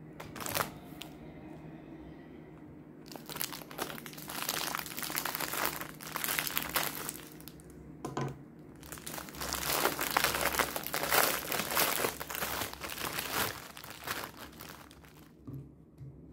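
Thin plastic bread bag crinkling in long stretches as it is handled and slices of bread are taken out, with a sharp click about half a second in.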